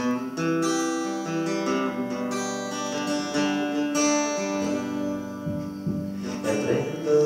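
Acoustic guitar strummed in ringing chords as a song's instrumental intro, with a harder strum near the end.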